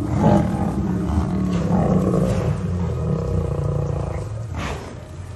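Lion growling and roaring, a deep, rough, continuous sound that eases off near the end.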